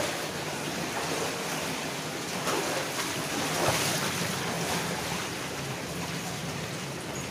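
Steady rush of mine drainage water flowing through a corrugated steel culvert.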